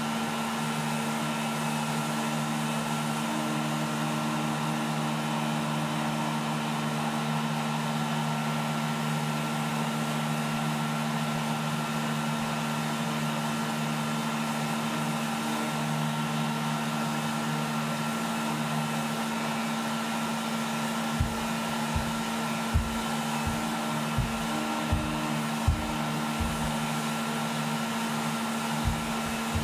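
Electric random orbital sander with a dust-extractor hose attached, running steadily as it sands a wooden floor transition strip. Over the last third, a string of irregular dull knocks.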